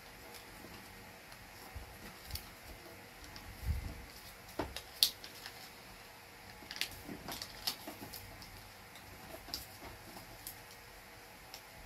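Small squares of origami paper being folded and creased by hand: scattered soft rustles and light taps, with a sharper click about five seconds in.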